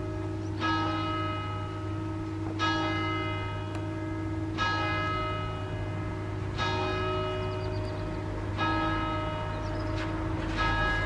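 A single large church bell swinging, struck about every two seconds, the same note each time, each stroke ringing on into the next. Six strokes.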